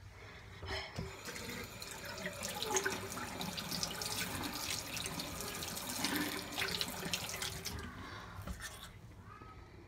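Water running from a bathroom tap into the sink, starting about a second in and stopping near the end.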